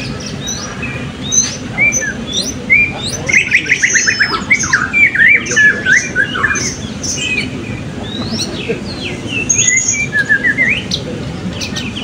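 Several caged blue-crowned hanging parrots (serindit) calling at once: sharp high chirps and quick up-and-down whistles overlap. There is a fast run of notes a few seconds in.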